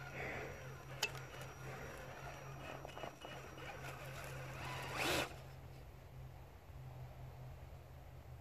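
Faint rustling and crackling of dry leaves and twigs under an RC crawler's tyres as it inches up the trail, over a low steady hum, with a sharp click about a second in and a louder brief rush of noise about five seconds in.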